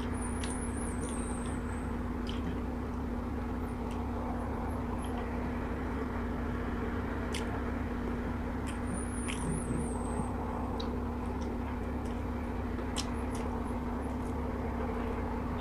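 Steady low hum with a fixed pitch, over which come sparse small clicks and crunches of fried chicken wings being bitten and chewed.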